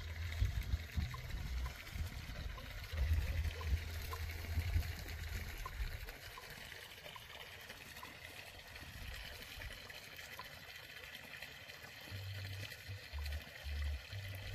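Water trickling steadily into a trout pond from its inlet pipes. Low rumbling comes and goes underneath, strongest in the first few seconds and again near the end.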